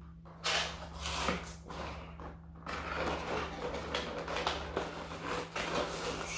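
Cardboard and plastic packaging of a boxed statue being handled during unboxing: short scrapes and rustles that become a near-continuous rustling from about a third of the way in, over a faint steady electrical hum.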